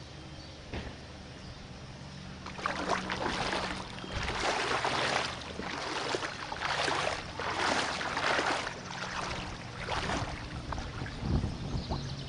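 Someone wading through floodwater, with a splash and slosh at each step, about once a second, over a steady low hum.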